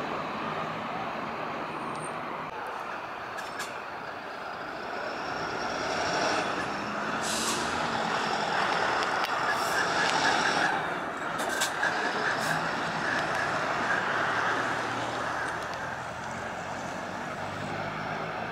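City bus diesel engines running in street traffic, with a sharp air-brake hiss about seven seconds in and a few shorter hisses a few seconds later. The traffic grows louder through the middle.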